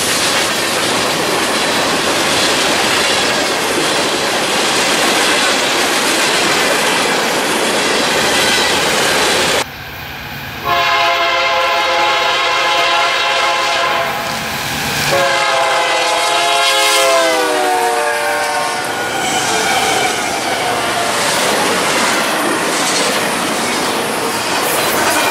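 Freight train cars rolling past with steady wheel noise and clatter. After a cut, an approaching diesel locomotive's multi-chime air horn sounds long blasts, the pitch of the second sliding down as the locomotive passes. Then the wheel clatter of double-stacked intermodal well cars going by.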